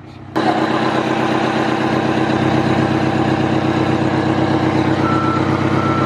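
1993 Titan fire truck's big diesel engine running loud and close, cutting in suddenly about a third of a second in with a fast, even throb. Two short high beeps sound near the end.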